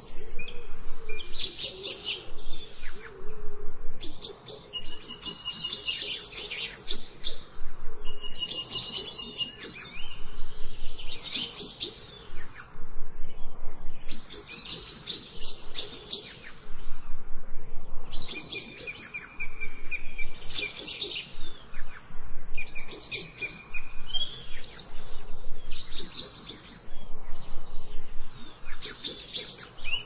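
Songbirds singing: short repeated phrases of quick high chirps and trills, some ending in a brief held whistle, a new phrase every couple of seconds.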